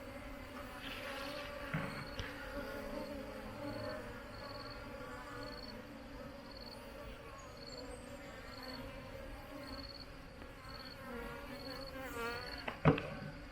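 Honeybees buzzing steadily, their hum wavering in pitch. A short, high insect chirp repeats about once a second, and a single sharp knock comes near the end.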